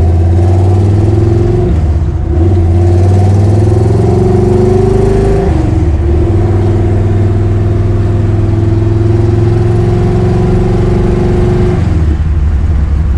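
A 1969 AMC Javelin SST's 390 V8 pulling through the gears of its four-speed manual, heard from inside the cabin. The engine's pitch climbs, drops sharply at shifts about two and about five and a half seconds in, then climbs slowly again. Near the end the revs fall once more.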